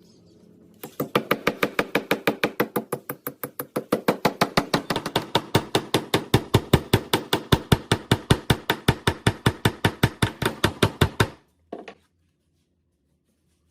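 Rapid, very even knocking, about five sharp strikes a second, that starts about a second in, runs for about ten seconds and stops abruptly, with one last short knock just after.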